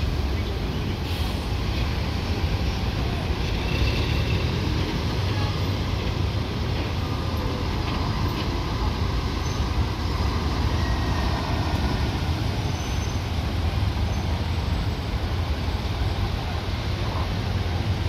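Steady road traffic from cars and trucks moving along a busy road: a continuous, even noise, heaviest at the low end.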